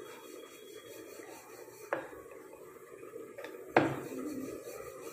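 Wooden rolling pin rolling out spinach puri dough on a metal rolling board: a steady rolling rumble with a few sharp knocks of the pin against the board, the loudest about four seconds in.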